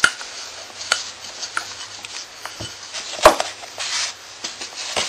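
Wooden rolling pin rolling out puff pastry on a wooden board, with irregular wooden knocks and taps about once a second, the loudest a little over three seconds in.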